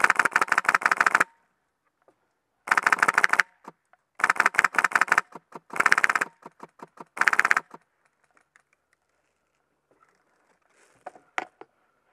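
A&K M249 SAW airsoft machine gun with a Polarstar compressed-air engine firing five bursts of rapid full-auto fire, the first and longest about a second, with a few scattered single shots between the later bursts. Faint clicks follow near the end.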